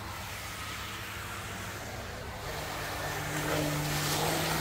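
RC jet boat running at speed on pool water: a steady hiss of churned water and spray, with the low hum of its drive coming in and getting louder about halfway through as it sweeps round in a turn.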